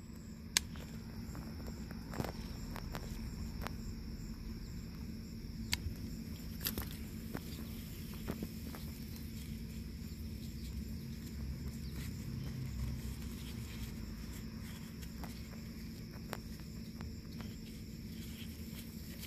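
Garden ambience: a steady high insect trill throughout, with scattered soft clicks and rustles close by.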